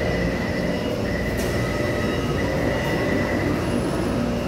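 Taipei Metro C301 high-capacity steel-wheel train at the platform: a steady mechanical hum and rumble with a faint high whine held on one pitch.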